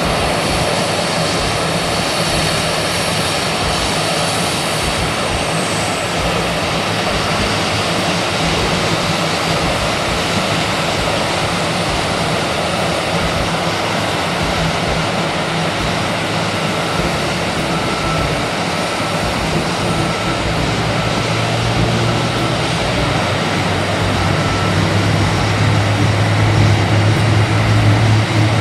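Airbus A320 jet engines running: a steady, loud rush with a low hum that grows louder over the last several seconds.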